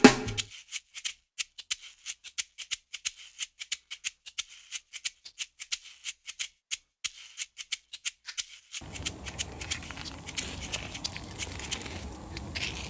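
A shaker rattling in quick irregular ticks in the background music. About nine seconds in, a steady rustle and crackle of long grass and gravel comes in as a Bengal cat pushes through the undergrowth, with the ticks still running over it.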